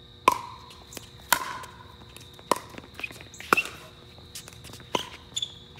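Pickleball rally: a hollow plastic pickleball struck back and forth with paddles and bouncing on the hard court, six sharp hits roughly a second apart, each with a brief ringing pock.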